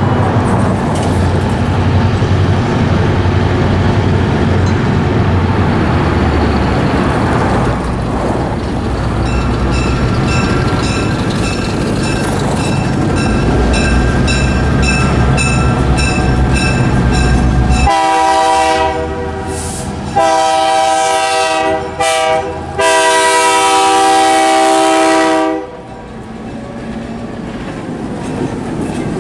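Diesel engines of a GP10 and GP16 locomotive pair rumbling as the train pulls out, with a bell ringing in an even beat for several seconds. The horn then sounds the grade-crossing pattern, two long blasts, a short one and a long one, and after it stops the freight cars roll past with wheels clicking over the rail joints.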